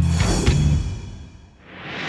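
Short musical transition sting: a low, pitched drum hit with a bright shimmer that fades away, then a rising whoosh swell near the end.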